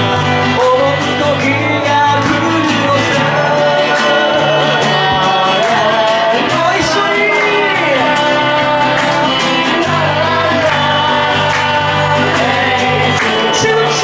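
Live band playing a song: a singer over guitar-led rock music.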